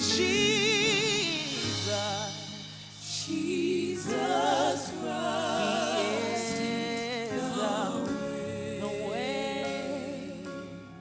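Gospel worship song: singing with wide vibrato on long, drawn-out notes over sustained chords.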